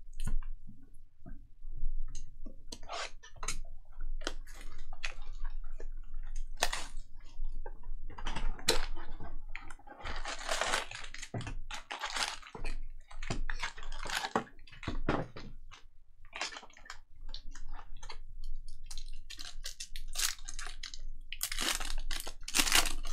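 2021 Bowman Draft Jumbo baseball card packs being opened and the cards handled: wrappers crinkling and cards sliding and flicking against one another, in irregular rustles and clicks with louder crinkly stretches about ten seconds in and near the end.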